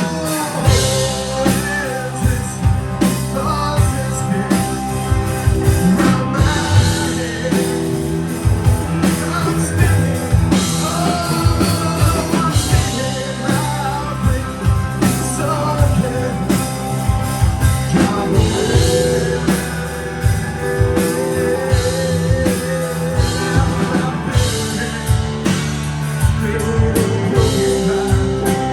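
Rock band playing live: electric guitar, bass and drum kit, with a singer.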